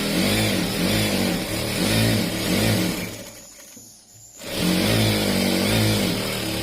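Electric sewing machine stitching fast at speed setting 34, in two runs with a brief slowdown about halfway. Its pitch rises and falls as the foot pedal is pressed harder and eased.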